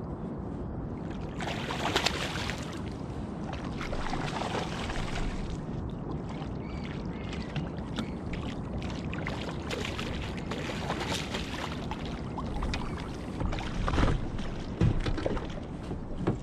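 Steady wind and water noise around a small inflatable boat, broken by a few short sharp knocks: the loudest about two seconds in and a cluster near the end.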